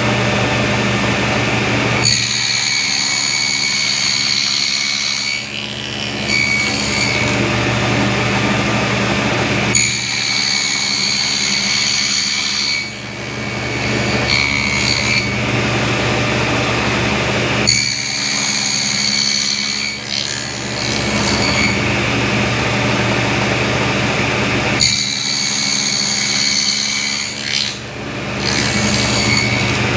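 Table saw with a wobble dado head running and nibbling a 3/4-inch-deep half-lap joint across a 2x6 board in repeated passes. There is a steady motor hum under it all. Four cutting passes, each a few seconds long, add a high whine as the blade chews through the wood.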